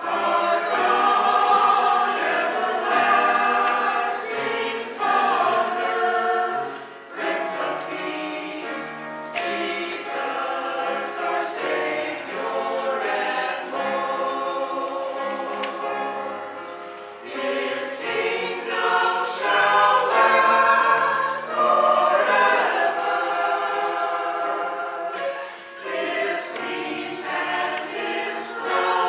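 Mixed adult church choir of men and women singing a Christmas cantata, in phrases with brief dips in loudness between them.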